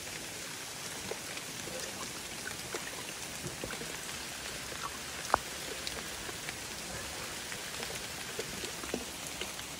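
Steady patter of water with scattered drips and light taps, and one sharper tap about five seconds in.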